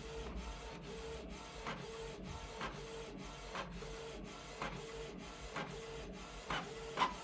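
Canon PIXMA TS3160 inkjet printer printing a page: the print-head carriage shuttles across with a short motor whine and a click about twice a second as the paper feeds out line by line.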